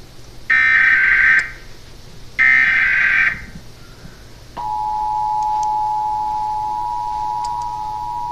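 Emergency Alert System header: two short bursts of the screechy digital data tones, each about a second long and a second apart, then, about four and a half seconds in, the steady two-tone EAS attention signal begins and holds.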